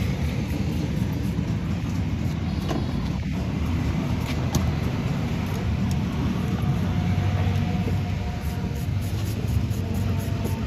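Steady low rumble of motor vehicles running, with a few faint clicks of small metal parts being handled.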